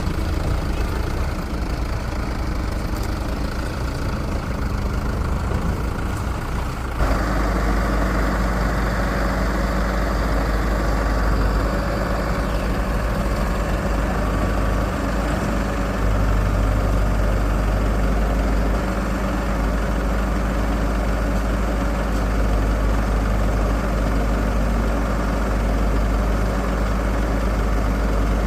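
Heavy diesel engine of a working machine running steadily. Its sound steps up abruptly, fuller and louder, about seven seconds in and again about halfway through.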